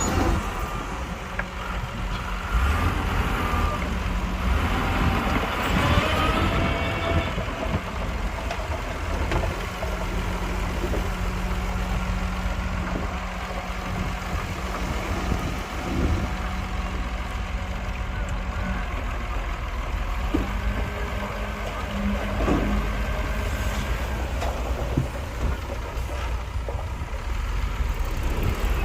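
Heavy diesel construction machinery running and working, with a continuous low engine drone and a steady hum. In the first few seconds there are some wavering higher tones.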